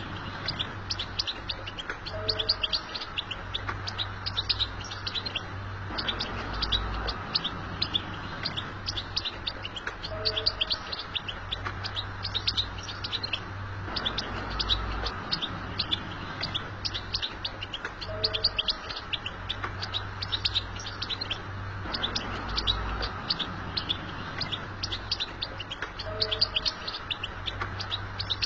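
European goldfinch twittering: rapid, high, tinkling chirps strung together in continuous chatter, the song type that bird keepers call 'batbata'. The same stretch of song recurs about every eight seconds, over a steady low hum.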